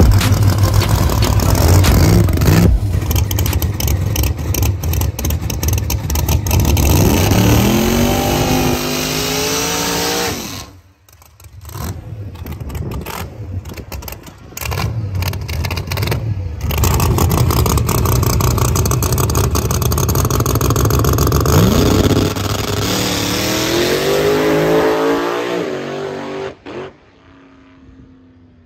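Nitrous-fed drag car engine making a full-throttle pass, its pitch climbing in a long rising sweep about a third of the way in and again in the second half, with a rough, choppy stretch in between. The engine sound cuts off near the end.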